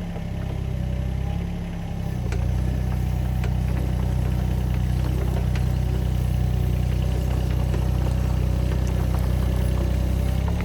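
An engine idling steadily. Its low hum dips and changes pitch in the first two seconds, then holds even.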